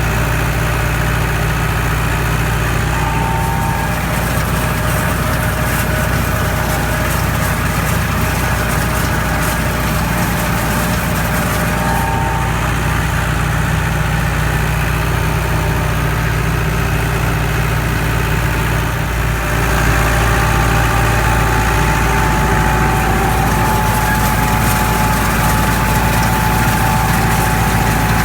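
Tractor engine running steadily, with a small rise in loudness about twenty seconds in.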